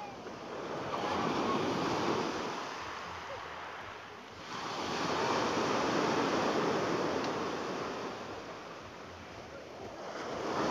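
Small waves breaking and washing up a fine pebble beach, a hiss of surf that swells and falls back in slow surges. Two waves wash in and draw back, and a third arrives near the end.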